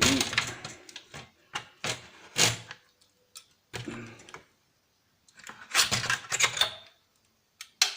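Irregular scraping, knocking and clattering of metal and plastic parts as a PlayStation 3's heatsink section is levered loose by hand, in a series of short, sharp bursts with pauses between.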